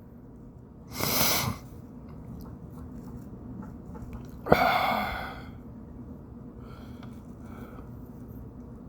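A man breathing close to the microphone: a sharp intake about a second in, then a louder snorting breath out through the nose and mouth about four and a half seconds in, followed by faint quieter breaths, over a steady low hum.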